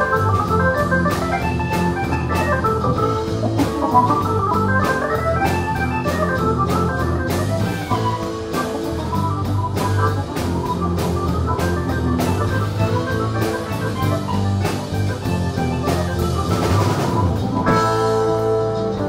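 Live rock band playing an instrumental passage: electric guitar lines over bass and a drum kit, with regular drum and cymbal strokes. Near the end a cymbal wash swells and the band lands on a held chord.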